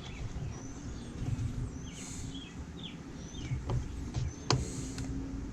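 Birds chirping in the background. About four and a half seconds in comes a sharp click as plastic and metal chainsaw parts are handled and fitted together.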